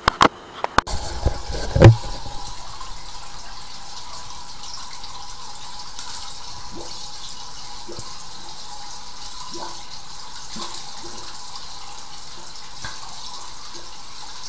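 A few loud knocks in the first two seconds, then a steady rush of water as a high-pressure drain-jetting hose is worked into a clogged bathroom floor drain.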